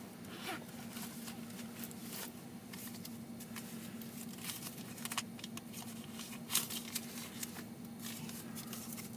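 Steady low hum of an idling car heard from inside its cabin, with scattered small clicks and rustles, one louder tap about six and a half seconds in.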